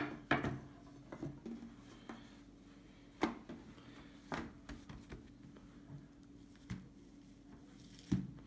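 Hands handling and laying down thin sheets of rolled dough on a floured wooden table: scattered soft taps and knocks, loudest at the very start, a little after three seconds in and near the end, over a faint steady hum.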